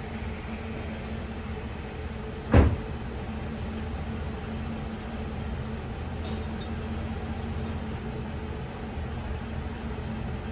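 A steady low hum with one loud thump or clank about two and a half seconds in, followed later by a couple of faint clicks.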